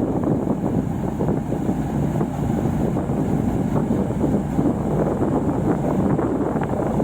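Combine harvester running steadily while it unloads harvested rice, with wind rumbling on the microphone.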